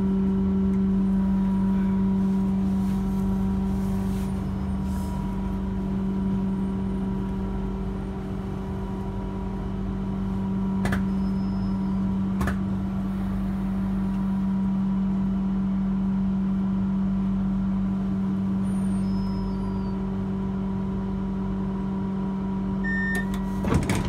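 Passenger train running, heard from inside the carriage: a steady low drone over a constant rumble, with a few faint clicks and a couple of knocks near the end.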